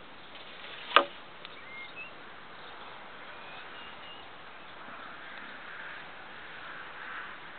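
A single sharp click about a second in, over faint outdoor background with a few short, high bird chirps.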